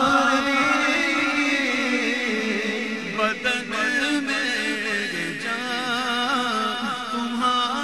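Male voice singing a naat in a long, wavering, melismatic vocal passage with no words picked out.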